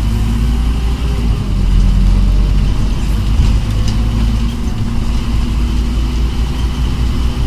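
Scania OmniCity double-decker bus's five-cylinder 9-litre diesel engine running steadily with a low rumble as the bus drives along, heard from inside the passenger saloon.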